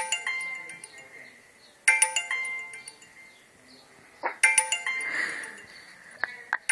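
Mobile phone text-message alert tone chiming three times, about two seconds apart: each time a short cluster of notes that starts suddenly and fades. It signals several text messages arriving one after another.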